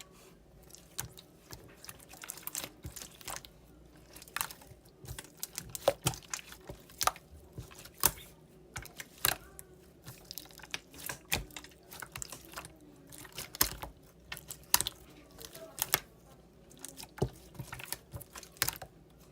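Irregular sharp clicks and taps, roughly one or two a second.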